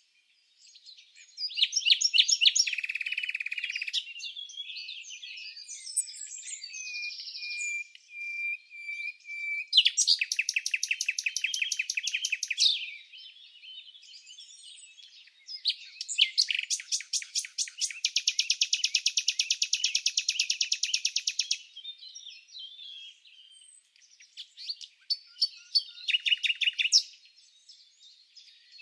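Small songbirds singing in a run of varied phrases: quick chirps, a drawn-out whistle, and fast trills. The longest trill lasts about five seconds past the middle.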